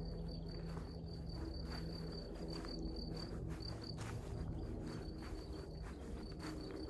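A cricket chirping in a high, steady trill broken by short pauses, over soft footsteps on grass.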